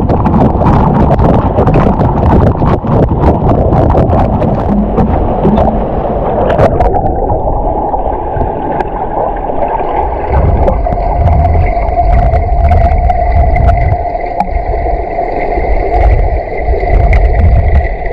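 Waterfall water rushing and crackling at close range. About seven seconds in, the sound turns muffled and gurgling, with a steady hum, as heard with the microphone under the water.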